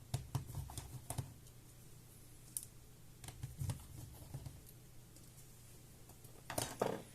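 Light, scattered clicks and taps of a screwdriver and small laptop parts being handled while the display hinge screws are taken out, several in quick succession at the start, a few in the middle and more near the end.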